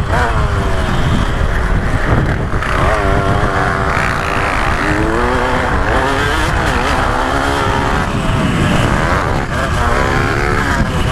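2015 KTM 125 SX single-cylinder two-stroke engine revving hard, its pitch climbing and dropping again and again as the rider works the throttle and shifts gears, over heavy wind rumble on the microphone.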